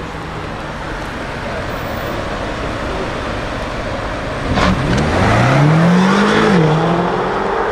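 BMW XM's 4.4-litre twin-turbo V8 accelerating away. About four and a half seconds in there is a sharp crack and the exhaust gets louder; the engine note climbs for about two seconds, dips briefly and then holds.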